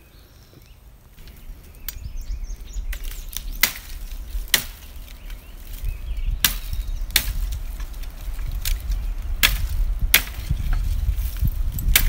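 Machete chopping at dry fallen branches for firewood: a series of sharp woody strikes about a second apart, starting about three seconds in.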